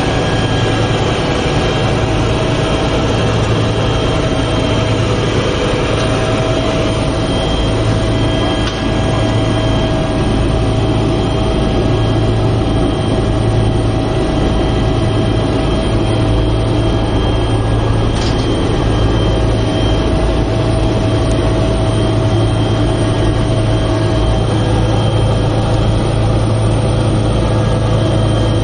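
Helicopter cabin noise in flight: a loud, steady low drone from the rotor and engine, with a thin high whine running over it.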